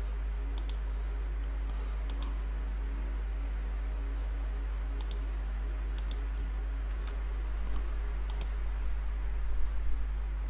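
Computer mouse clicking in short paired clicks every second or two, then a quicker run of keyboard typing near the end, over a steady low electrical hum.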